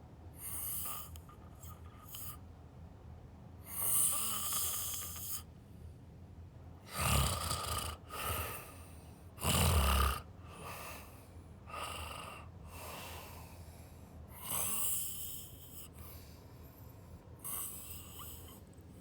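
Snoring: a run of irregular, noisy breaths a second or two apart, with two louder, deeper snores around the middle.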